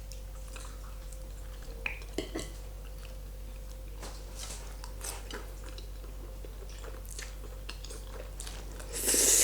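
A person eating carbonara pasta close to the microphone: quiet chewing with a few light clicks about two seconds in, then a louder breathy rush near the end.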